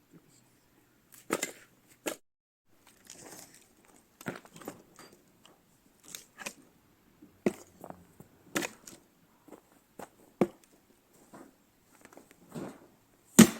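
Firewood being split into kindling with an axe: irregular sharp chopping blows, with the wood cracking and tearing apart. The loudest blow comes near the end.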